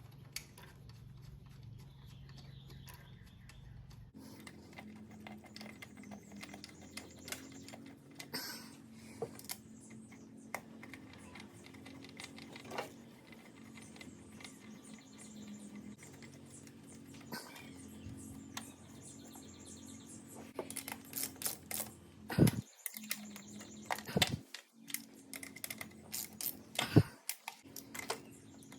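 Scattered small clicks and taps of hard plastic and metal parts being handled and snapped together as fuel injectors are seated in the fuel rail and their retaining clips pushed on. A faint steady low hum runs behind them. The clicks come louder and closer together over the last several seconds.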